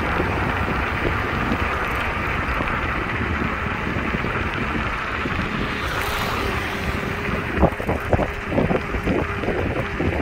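Wind rushing over the microphone and tyre noise from a Wolf Warrior electric scooter riding along a paved path. From about six seconds in a steady hum joins, and a second or so later comes a run of knocks and rattles as the scooter goes over rough, cracked pavement.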